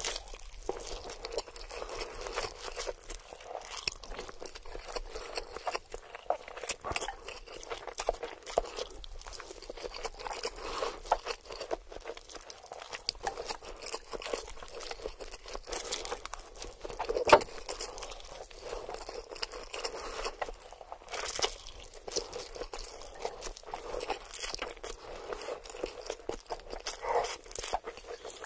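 Close-miked mukbang eating sounds: a mouthful of fried instant noodles being slurped and chewed, with a steady run of quick clicking and crackling mouth sounds and one sharper click a little past halfway.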